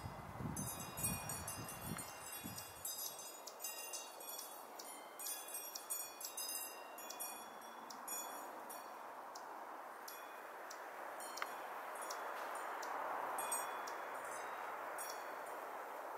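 Wind chimes ringing: many overlapping metallic strikes in the first half, then only scattered ones, over a steady hiss. A low rumble in the first few seconds sounds like wind on the microphone.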